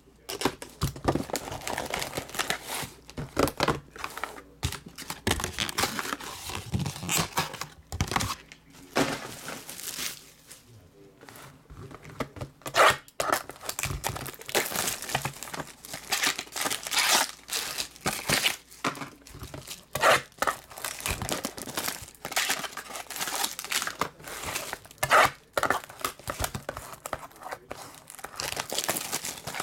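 Plastic shrink wrap crinkling and tearing as it is peeled by hand off trading-card boxes, with irregular crackles throughout and a brief quieter pause midway.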